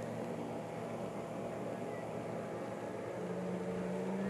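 Boat engine running at low speed with a steady hum that grows louder about three seconds in, as the boat draws nearer.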